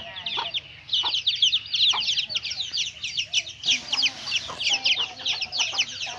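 Many small birds chirping at once: a dense, continuous run of high, quick cheeps that slide downward, several each second, with a few lower calls mixed in.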